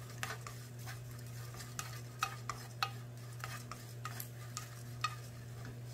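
Wooden spoon stirring sliced almonds in a dry frying pan, giving irregular taps and scrapes against the pan, over a steady low hum.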